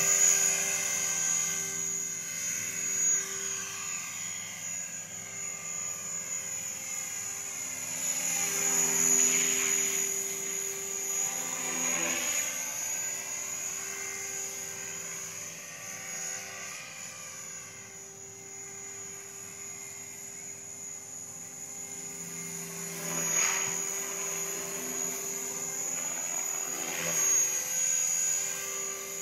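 Align T-Rex 500 electric radio-controlled helicopter in flight: a steady whine from its motor and rotor blades that swells and fades as it passes back and forth, loudest on a few close passes.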